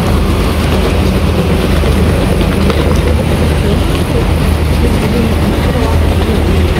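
Steady low rumble of city street ambience, with traffic and indistinct passers-by's voices blended together.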